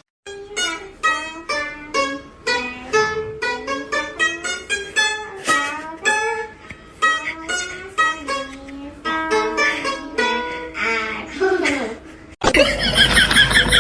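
Music with plucked strings, a quick run of short pitched notes. Near the end it cuts off abruptly into a loud, harsh blare.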